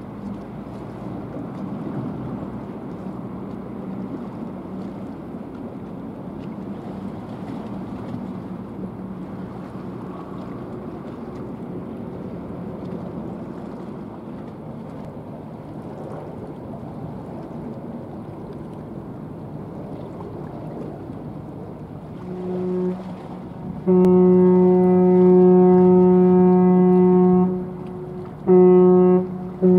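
A ship's horn sounds a short blast about 22 seconds in, then a long blast of about three and a half seconds, then two short blasts near the end. It is a deep, steady tone with many overtones. Underneath is a low steady rumble of the passing cargo ship and wind.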